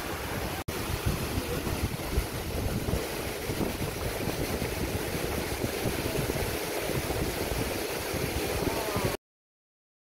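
Steady rush of the Bandaje waterfall, with wind buffeting the microphone. The sound drops out for an instant under a second in and cuts off suddenly near the end.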